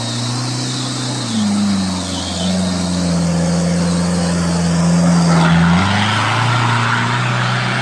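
Toyota Hilux Surf's engine pulling off-road. Its pitch steps up about a second and a half in, holds, then drops back near the end. A loud rushing noise swells over it in the last two seconds.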